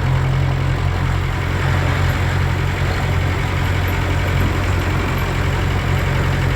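Engine of a large work vehicle rumbling steadily as it drives, a low drone heard from inside the cab.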